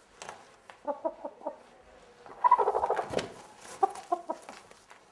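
A chicken being handled, clucking: a quick run of short clucks about a second in, a louder, longer call near the middle, then a few more short clucks.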